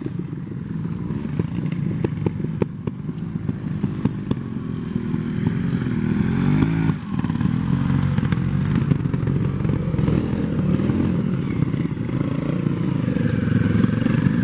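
Trials motorcycle engine running at low revs with the throttle worked on and off. Its pitch climbs from about five seconds in and drops sharply near seven seconds, with scattered clicks and clatter from the bike.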